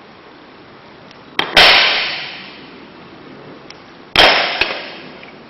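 Stainless steel shower door handles clanging twice against a hard surface, about two and a half seconds apart, each strike ringing out for about a second.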